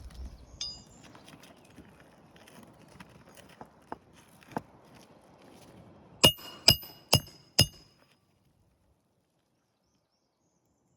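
Four sharp, ringing hammer strikes, about two a second, driving a roofing nail during shingle repair, after a few seconds of faint scraping and light taps.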